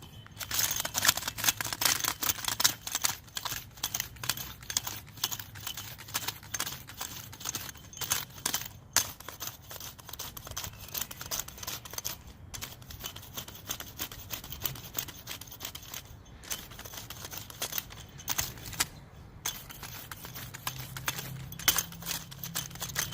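A hand garden tool scraping and digging into soil, breaking it up with a continuous irregular run of gritty scrapes and clicks as the blade hits small stones, over a low steady hum.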